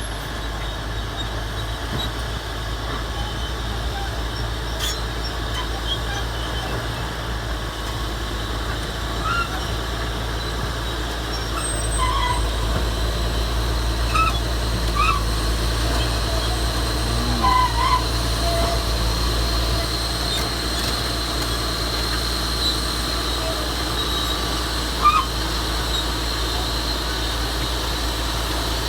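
Komatsu D375A bulldozer's large diesel engine working under load: a steady low drone that grows louder about twelve seconds in and eases back around twenty seconds. Scattered short high chirps sound over it.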